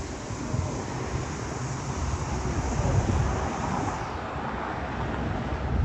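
Wind buffeting the microphone over a steady, distant rumble of jet aircraft at the airport.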